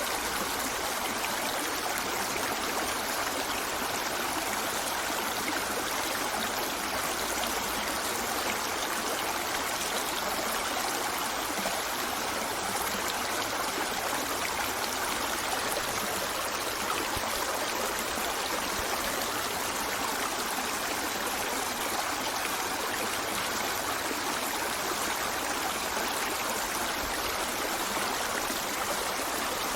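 A river flowing steadily over rocks: an even rushing and babbling of water that does not change.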